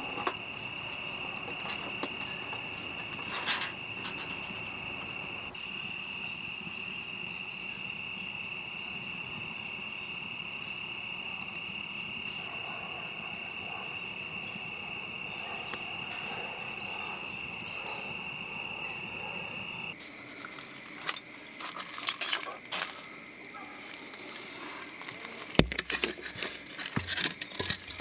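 A steady high-pitched insect chorus, like crickets, that cuts off abruptly about two-thirds of the way in. Scattered clicks and knocks follow it.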